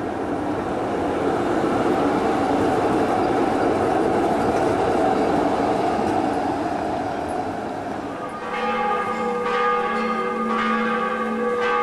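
A tram passing close by, the steady noise of its wheels on the rails. About eight seconds in, church bells begin ringing, with strikes coming about once a second.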